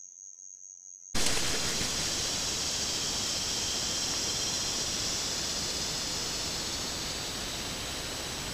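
A steady high trill of night insects for about a second, then an abrupt cut to a loud, even hiss from the trail camera's own recording, with no clear sound event in it.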